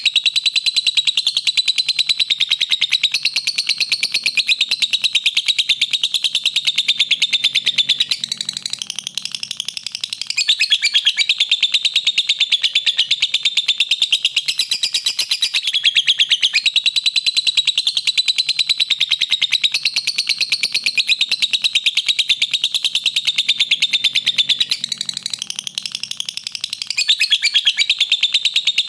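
Lovebird chattering song: a fast, unbroken stream of high, shrill chirps, with a short softer stretch about a third of the way in and again near the end, as the same passage repeats.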